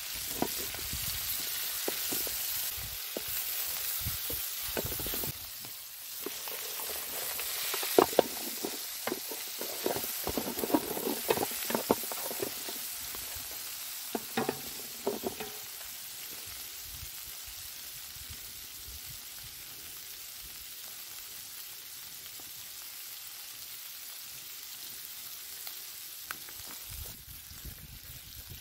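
Chicken pieces sizzling steadily in a wide metal pan over a wood fire, with a spatula scraping and clacking against the pan as the meat is turned during the first half; after that only the sizzle.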